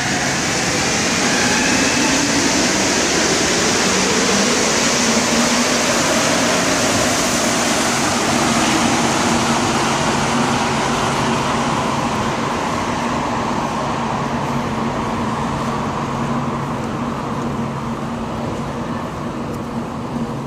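Rubber-tyred Montreal AZUR metro train pulling out of the station and running off into the tunnel. It is a loud, steady rumble with a low hum underneath and a motor whine near the start, and it fades slowly over the second half.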